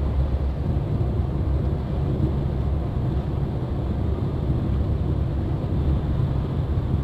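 Steady low rumble of a bus's engine and tyres at motorway speed, heard from inside the cabin.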